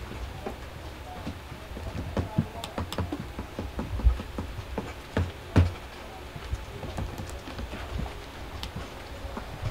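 Irregular clicks and taps of hands working laptop keyboards and MIDI controllers, with two louder dull thumps about four seconds in and again a second and a half later.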